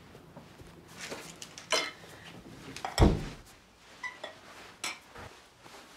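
Crockery and cutlery clinking as a plate with a spoon on it is gathered up, with a heavier thump about three seconds in and a short ringing clink a second later.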